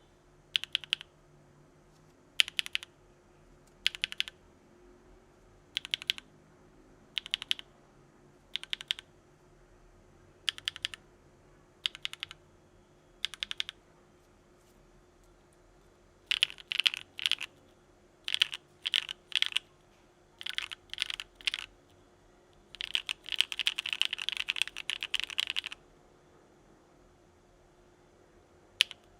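Keystrokes on a Frog by Geonworks mechanical keyboard with Gateron Modern Grey linear switches in an aluminum plate and CRP Desko keycaps, each press heard with its release. About ten single presses come evenly spaced, roughly every second and a half. Quicker pairs of keystrokes follow, then a fast flurry of typing lasting about three seconds, and one last press near the end.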